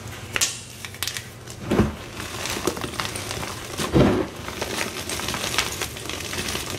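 Blocks of Z Athletic gym chalk crushed by hand into a bowl of chalk powder: a dry crunching and crumbling made of many small crackles, with two heavier crunches about two and four seconds in.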